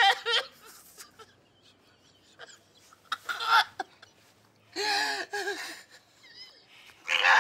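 A man sobbing: three drawn-out, wavering cries, with quiet pauses between them.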